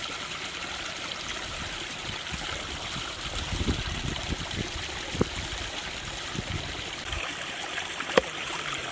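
A large curved knife chopping raw chicken on a wooden stump block: scattered dull knocks, then two sharp chops, the second near the end the loudest, over a steady rushing hiss.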